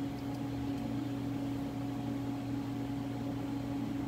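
Steady machine hum of a powered-up Haas CNC lathe standing with its spindle stopped: a low drone with a higher steady tone above it and a faint hiss.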